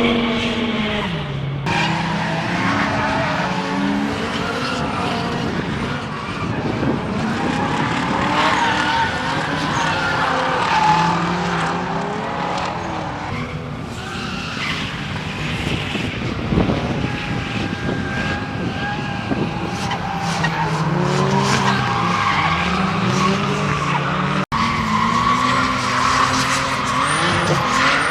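Race car engines revving hard, pitch climbing and falling again and again, over a continuous rush of tyre noise with skidding. The sound drops out for an instant about 24 seconds in.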